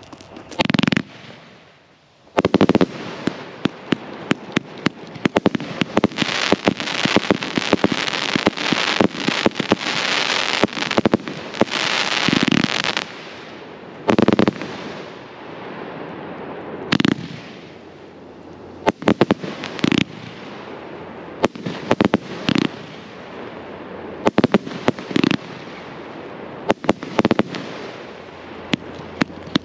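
A 218-shot "Master Party" firework cake firing. There is a single bang about a second in. From about two and a half seconds, a fast, unbroken volley of shots and bursts runs with thick crackling until about 13 seconds in. After that come louder separate bangs every second or two over a lighter crackle.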